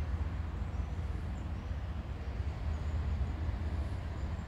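Wind buffeting a handheld microphone outdoors: a steady, unevenly pulsing low rumble, with a few faint high chirps above it.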